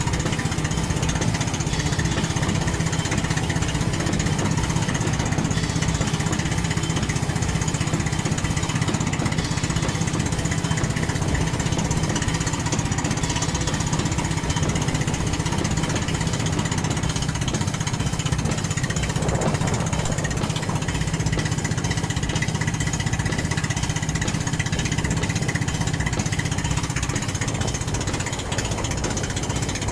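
Small engine of a motorized outrigger boat running steadily at cruising speed, with a constant low drone.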